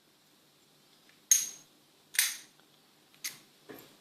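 Sharp metallic clicks of an Abus 65/50 closed-shackle padlock being worked with its key. There are four clicks, the first three about a second apart and the last two close together.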